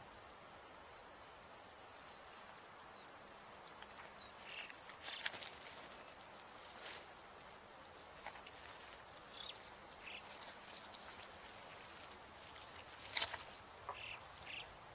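Quiet outdoor nature ambience: a faint steady hiss with a few sharp clicks or rustles, the loudest near the end, and a rapid run of short high chirps, about four a second, through the middle stretch.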